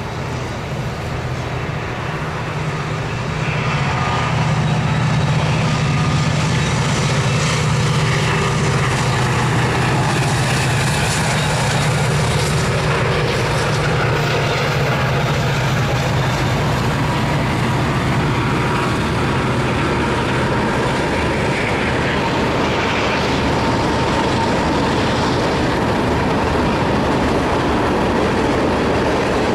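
A line of CSX diesel-electric freight locomotives passing, their engines giving a steady low drone over the noise of the train on the rails. The sound grows louder about four seconds in and then holds.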